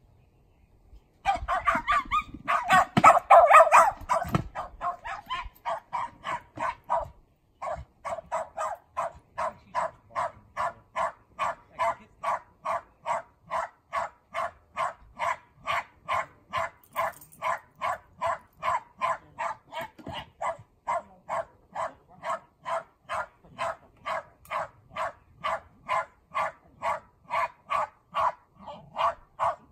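Cairn terrier barking from inside an earthdog tunnel, working the quarry. It starts with a loud, rapid flurry of barks about a second in. After a brief pause it settles into steady, rhythmic barking at about two barks a second.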